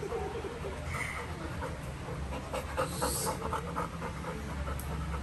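Chocolate Labrador panting, a fast run of short breaths several a second.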